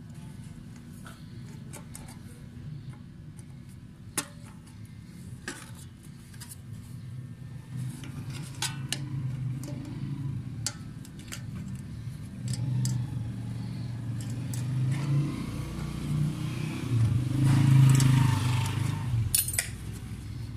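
Scattered sharp metallic clicks and clinks from pliers and the metal fan blades and hub being handled, over a low engine rumble that swells to its loudest near the end and then eases.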